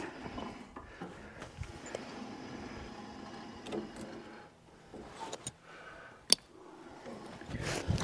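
Woodland Mills HM122 sawmill head being pushed by hand along its steel track: a faint, fairly steady rolling rumble and rattle with a few light knocks, and one sharp click about six seconds in.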